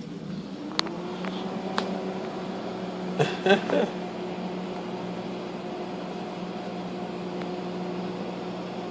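Microwave oven running with a steady hum, its tone rising as it spins up over the first second, then holding. A couple of faint clicks and a brief, louder burst of noise come about three and a half seconds in.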